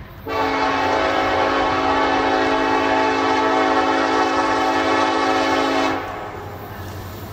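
Norfolk Southern freight locomotive's air horn blowing one long, steady chord of about six seconds, then breaking off just before the next blast starts at the very end. A low train rumble runs underneath.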